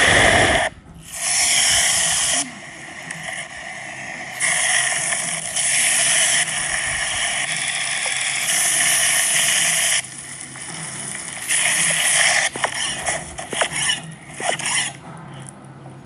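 Meat sizzling, heard in several stretches of steady hiss that start and stop abruptly, with a few short clicks and scrapes near the end.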